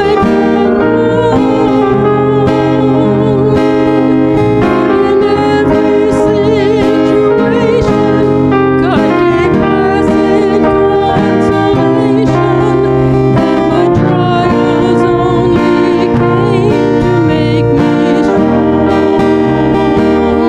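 Live worship band playing a song on keyboard, electric guitar and acoustic guitar, at a steady level, with a wavering lead melody line over the chords.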